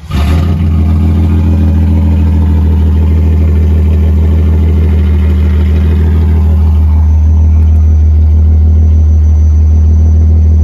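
Jaguar XJS V12 engine firing up and catching almost at once, then idling steadily with a loud, deep exhaust note. The owner puts the quick start down to more fuel pressure from the new in-tank fuel pump.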